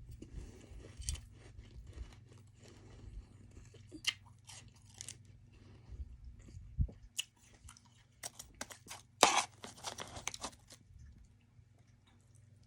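Close-miked mouth crunching and chewing soft freezer frost ice, in irregular crunches with a loud burst of crunching about nine seconds in.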